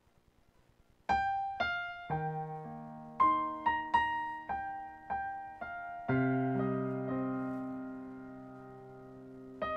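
Background piano music. After about a second of near silence, a melody of single struck notes plays, then a held chord from about six seconds in slowly fades before new notes start near the end.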